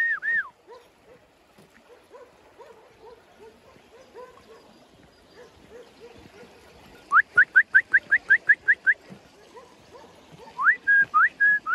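A person whistling to call dogs back: a run of whistles ending just after the start, then a few seconds of faint background, then a quick string of about nine short rising whistles, and another run of rising and held whistles near the end.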